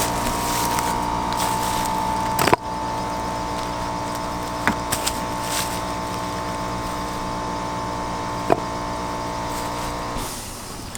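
An engine running steadily at an even pitch, then dying away about ten seconds in. There is a sharp knock about two and a half seconds in and a couple of light clicks later.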